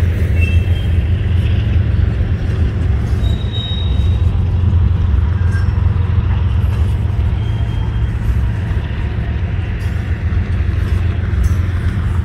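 Freight train passing at close range: a steady, loud low rumble of wheels and locomotives, with a few faint short high tones.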